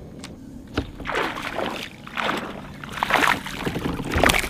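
A small hooked speckled trout splashing and thrashing at the water's surface as it is reeled toward the kayak, in several separate splashes.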